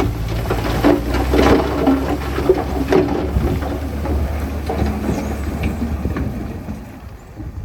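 Heavy machine's engine running with a low rumble, with scattered clanks and knocks of working machinery over it; the rumble fades away near the end.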